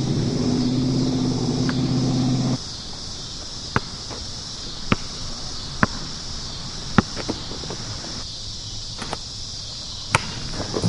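A low drone that cuts off abruptly about two and a half seconds in, then a basketball bouncing on an outdoor asphalt court: single sharp bounces about a second apart, over a steady high hiss.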